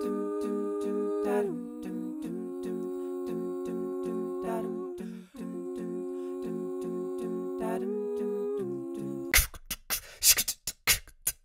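Looped layers of a woman's a cappella voice: a low repeated 'dum' bass line under held, hummed chords that change pitch twice. Near the end the chords drop out and sharp beatboxed percussion hits come in.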